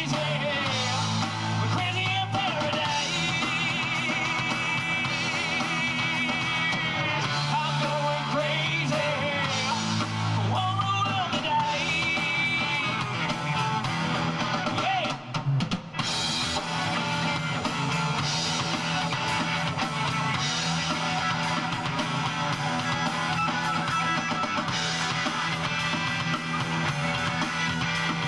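Live rock band playing: electric guitars and drum kit with a man singing. The singing stops about halfway through and the band plays on without vocals, after a brief drop in the sound.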